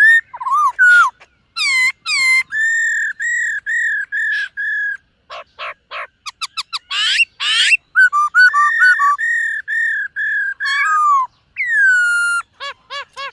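Black-throated laughingthrush singing: loud, clear whistled phrases, with runs of evenly repeated fluty notes at about four a second and a few quick, rougher notes in between.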